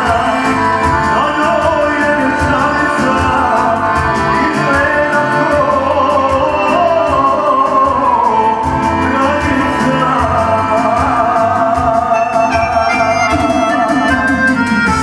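Live band music through a PA: a man sings into a microphone over a Dallapé accordion and a Korg keyboard, which keeps a steady programmed beat.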